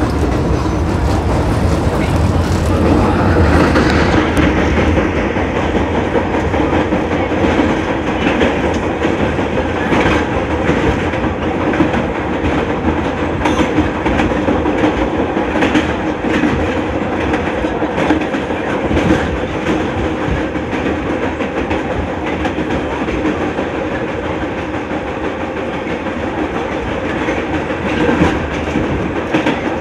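Vintage New York City subway train running along the line, heard from aboard: a steady rumble with wheels clacking over rail joints every second or two, and a whine rising in pitch near the start.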